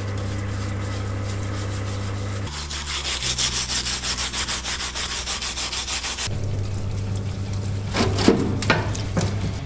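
Steady electric hum of a parts-washer pump while greasy engine parts are brushed in solvent, broken in the middle by about four seconds of fast back-and-forth hand scrubbing on a grimy cast engine part clamped in a vise.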